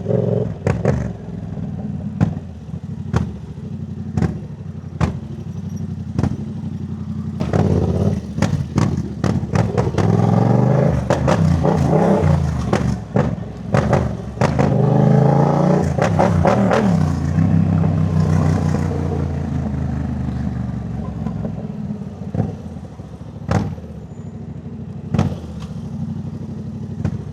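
Yamaha MT-07 parallel-twin engine running through a Jeskap full exhaust system while riding, revving up and easing off a couple of times in the middle. The silencer has new wool packing, which keeps the exhaust a little quieter and free of crackle. Sharp clicks recur throughout.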